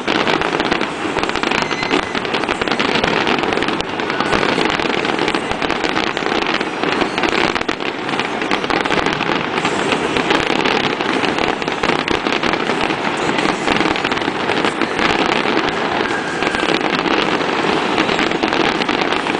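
Fireworks display: aerial shells bursting in a dense, continuous run of overlapping bangs and crackles.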